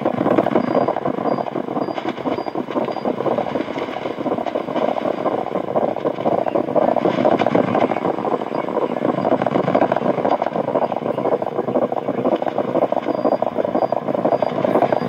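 Shortwave radio static from a Realistic DX-60 receiver's speaker: a steady, loud rushing hiss with no station audible, heard while the receiver is tuned between stations. A faint high pip repeats in places.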